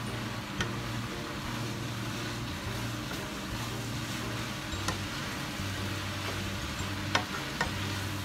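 Yakisoba noodles and vegetables sizzling in a frying pan as they are stirred and tossed with a wooden spatula, with a few sharp clicks of the spatula against the pan, the loudest about seven seconds in. A steady low hum runs underneath.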